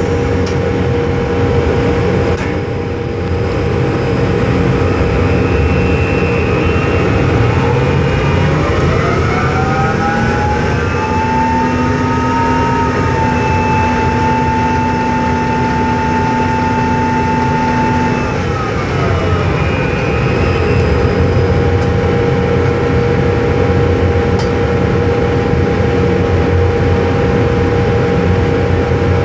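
Steady drilling-rig machinery noise with a constant hum. About a third of the way in, a motor whine rises in pitch, holds for several seconds, then falls away: the top drive turning the casing running tool to spin up and make up a joint of 5½-inch casing.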